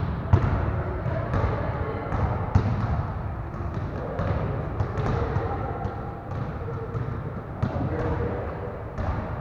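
Several basketballs dribbled on a hard gym floor: irregular, overlapping bounces, with background chatter of kids.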